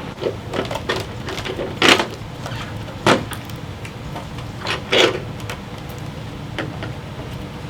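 Scattered clicks and knocks of tools and parts being handled while a motorcycle is taken apart, the three loudest about two, three and five seconds in, over a steady low hum.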